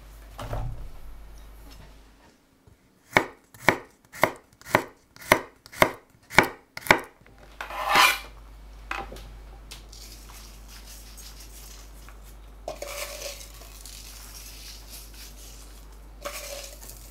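A run of eight sharp, evenly spaced knocks at about two a second, then a clattering rush as boiled baby potatoes slide off a wooden chopping board into a metal pan of diced vegetables. Two brief soft rustles come later.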